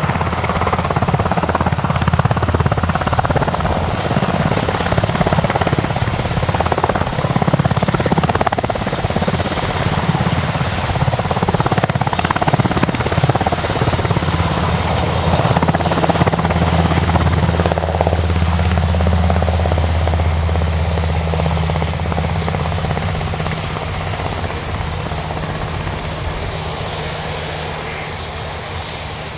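Sikorsky S-92A helicopter's rotors and twin turboshaft engines at take-off power as it lifts off and climbs out. A steady low hum settles in after about sixteen seconds, and the sound fades over the last few seconds as the helicopter moves away.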